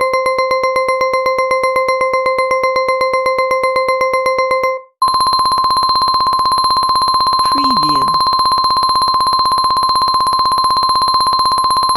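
Electronic timer alarm: a fast run of identical beeps at one pitch, which cut off about five seconds in and give way to a higher, faster pulsing ring like an alarm-clock or phone ring.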